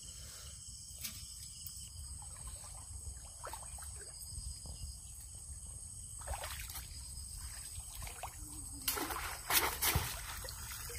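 Shallow water sloshing and trickling as a bamboo fish trap is worked in muddy floodwater, with a few louder splashes near the end as the trap is rinsed and lifted. A steady high insect chirring runs underneath.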